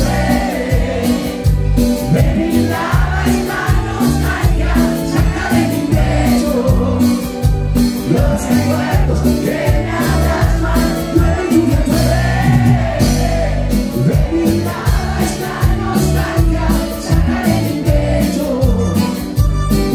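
Live band music played loud through a stage PA: a sung melody over electric guitar, bass, congas and bandoneon, with a steady beat.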